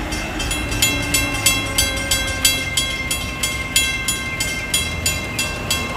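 A warning bell rings rapidly and evenly, about three to four strokes a second, starting just after the beginning, over the low rumble of a DART light rail train pulling away.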